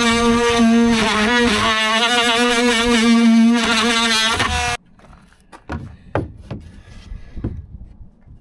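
Cordless drill with a spade bit running under load as it bores into a softwood batten, a steady motor whine that dips in pitch briefly as the bit bites. It stops abruptly a little under five seconds in, followed by light knocks of the wood being handled.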